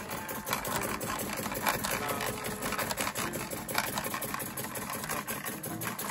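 Märklin 4122 vertical toy steam engine running, with its belt-driven line shafting and a toy punch press model making a fast, steady mechanical clatter.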